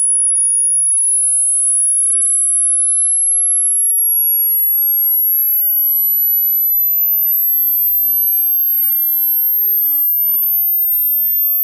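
A single pure, very high-pitched hearing-test tone, held at a steady volume and gliding slowly and evenly upward in pitch. It is the high end of a frequency sweep, used to find the highest pitch a listener can still hear.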